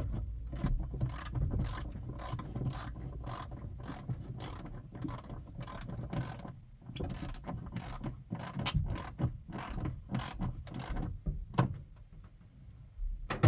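Ratchet wrench clicking in quick repeated strokes as a bolt is tightened, about three clicks a second, with a brief pause about halfway through.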